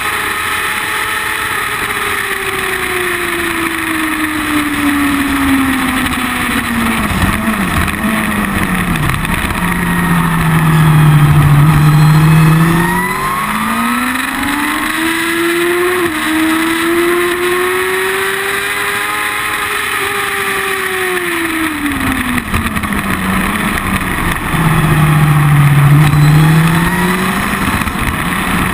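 Sport motorcycle engine and exhaust at speed, with wind rush. The engine note falls over the first ten seconds, sits low and loudest for a couple of seconds, climbs and falls again, and sits low and loud once more near the end.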